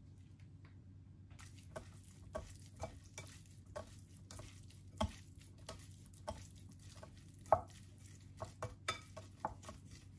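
Raw beef strips for yukhoe being tossed by a plastic-gloved hand with sesame oil and seasoning in a glass bowl: a run of soft, wet squishes and slaps, irregular and about two a second, starting a second and a half in.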